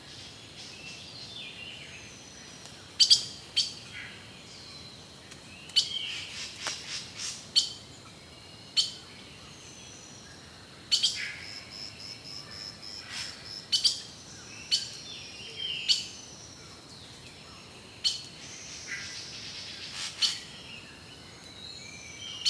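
Wild birds calling: loud, sharp single notes every one to three seconds, with softer whistled slurs between them and a faint steady high tone behind.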